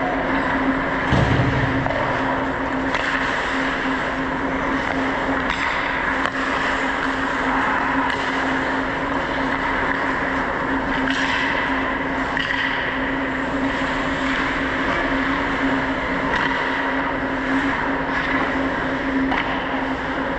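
Ice hockey play: skate blades scraping and carving on the ice as a steady rushing noise, with scattered clacks of sticks and puck and a heavier thump about a second in. A steady low hum runs underneath.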